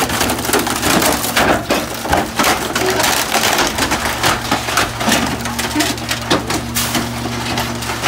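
Rear-loader garbage truck's packer blade crushing bulky waste in the hopper, with a dense run of cracking and splintering snaps. The truck's steady low engine and hydraulic hum runs underneath.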